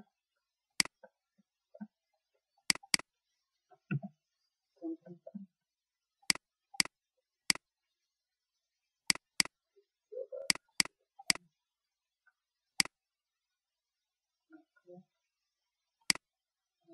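Computer mouse button clicks, sharp and isolated, coming at irregular intervals, some singly and some in quick pairs like double-clicks.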